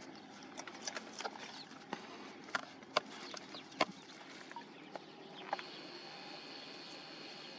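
Scattered sharp clicks and taps from a mother dog and her puppies feeding at a bowl and moving about on dry, gravelly ground. A steady high whine comes in suddenly about five and a half seconds in.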